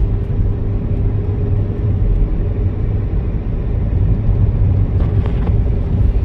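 Steady low rumble of a car driving along a highway, heard from inside the cabin: engine and tyre road noise.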